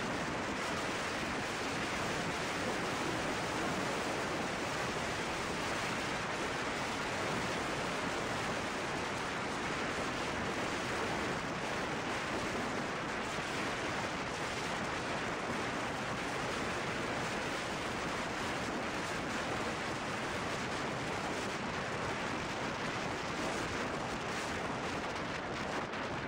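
Steady wind rush buffeting the microphone of a camera on a moving motorcycle at road speed, an even hiss with no distinct engine note or events.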